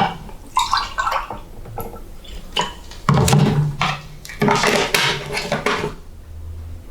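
Dishes and pans clattering in several separate bursts, the loudest about halfway through.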